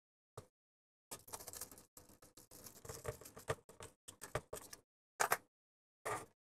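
Rustling and clicking of electrical wires being handled and pushed into the terminals of a small circuit breaker on a plastic fan base plate, with two sharper clicks near the end.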